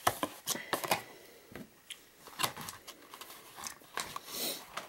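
A burger being cut and pulled apart by hand in a cardboard takeout box: scattered small clicks, scrapes and crinkles, with a brief rustle near the end.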